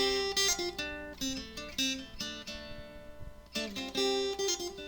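Acoustic guitar intro music, strummed chords with notes ringing out.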